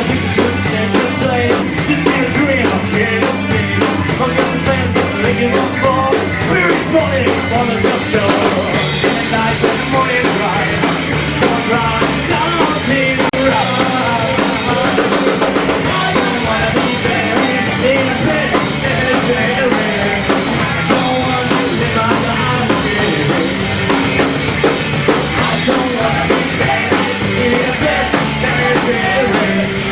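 Rock band playing live, loud and continuous, driven by a drum kit.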